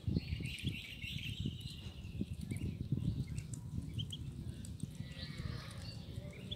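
Ducklings giving short, high peeps now and then, over a low, irregular rumbling and knocking.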